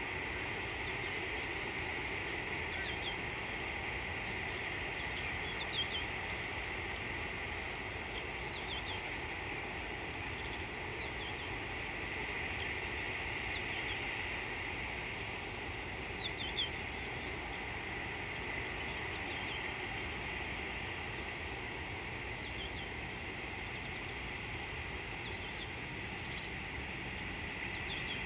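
Steady insect chorus: an unbroken high-pitched drone over a low background hiss, with short faint bird chirps every few seconds.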